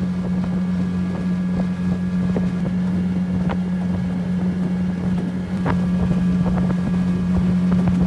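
Dinghy's outboard motor running steadily under way, a loud even drone that holds one pitch.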